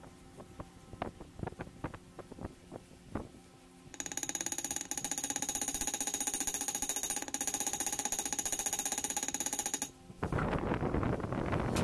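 Faint scratches and clicks of old paper gasket being picked and scraped off an aluminium engine crankcase. About four seconds in, a loud, steady, fast-pulsing buzz starts and stops abruptly some six seconds later, followed by a rushing noise near the end.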